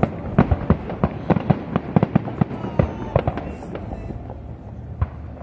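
Fireworks display: a quick run of cracks and bangs from bursting shells, several a second, thinning out and getting quieter toward the end.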